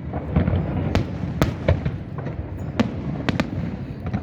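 Aerial fireworks bursting: a string of about six sharp bangs, two of them close together near the middle, over a continuous low rumble of other distant explosions.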